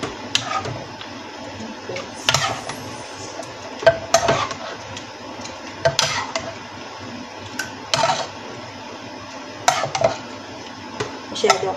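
A utensil clinking, knocking and scraping against a blender jar and a saucepan as blended broccoli soup is scooped and tipped out of the jar: sharp, irregular clinks every second or two.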